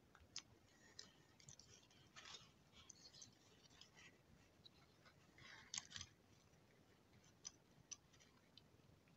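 Near silence with faint scattered clicks and light scrapes from a small circuit board being handled and turned over, a little cluster about two seconds in and another near the middle.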